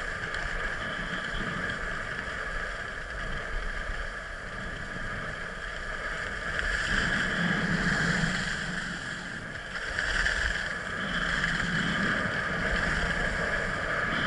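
Skis sliding and scraping over packed snow on a downhill run, a steady rushing hiss with wind on the microphone, growing louder about seven seconds in and again from about ten seconds.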